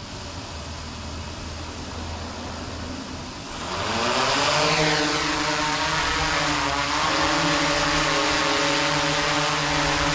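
DJI Inspire 2 quadcopter motors and propellers: a quieter low hum first, then spinning up hard for takeoff about three and a half seconds in, with the pitch sliding as it lifts. It settles into a steady, pretty loud hovering whine with several fixed tones.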